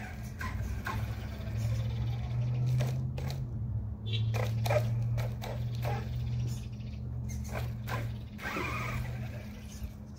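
Redcat Landslide XTE brushless RC monster truck driving: a steady low motor and drivetrain hum, with irregular knocks and clatters as the truck bounces over the ground. The hum stops shortly before the end.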